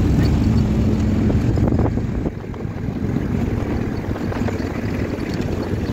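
Engine and road rumble of a moving car heard from inside the cabin, with a steady engine hum. About two seconds in, the hum fades and the rumble drops to a lower, rougher noise.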